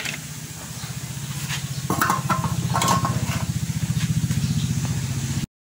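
A motorcycle engine running with an even pulsing beat, louder after the first two seconds, with a few sharp clicks of handling over it.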